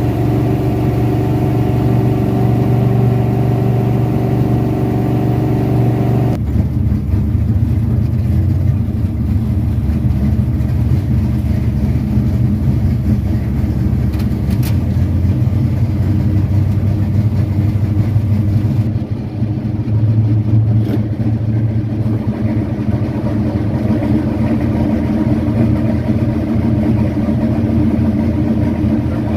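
Carbureted car engine running: an even, steady drone for about six seconds, then the sound changes abruptly to a rougher, noisier run.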